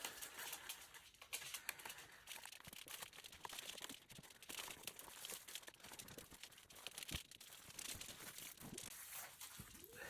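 Faint rustling of cardstock being handled and pressed into place, with scattered small taps and clicks as glued card pieces are stuck together.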